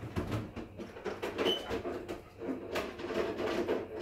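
Rattling and knocking of things being moved about inside an open refrigerator, with one short, bright clink about a second and a half in.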